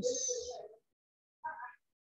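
A man's voice trails off at the end of a word with a hissing 's', then drops to dead silence. One brief voice-like sound comes about one and a half seconds in.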